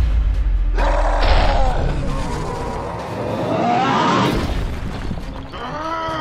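Cartoon fight sound effects: a heavy booming rumble, then a noisy rising whoosh, and a character's voice crying out near the end.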